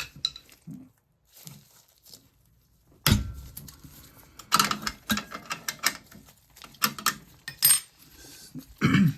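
Metal tools clinking and knocking on an oil burner as wrenches loosen a bolt and a line fitting: scattered sharp clinks, with the loudest knock about three seconds in.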